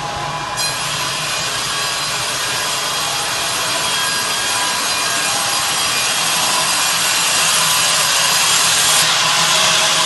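Serra Alpina KE 90 electric band sawmill cutting a log: the wide band blade enters the wood about half a second in and runs on as a loud, steady sawing, with a high ringing whine over the hiss of the cut.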